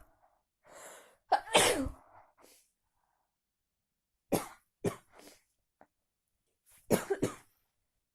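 A person sneezing: a drawn-in breath, then a loud sneeze about a second and a half in, followed by two short, sharp bursts around four to five seconds in and a double burst near the end.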